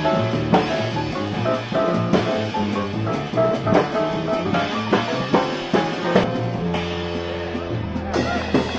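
Live jazz quartet of cornet, piano, double bass and drum kit playing, with pitched notes over steady drum strokes and a chord held for over a second near the end. Recorded on a cassette recorder, so the sound is dull and lacks top end.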